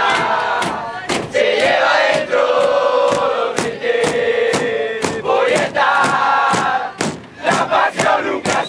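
Argentine football crowd chanting a terrace song in unison: a mass of voices singing over a steady, sharp beat. The singing briefly drops away about seven seconds in, then picks up again.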